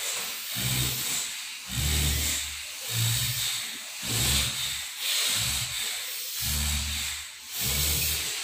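A man breathing forcefully and rhythmically through his right nostril, the left held shut, as a yogic breathing exercise: hissing breaths about one a second.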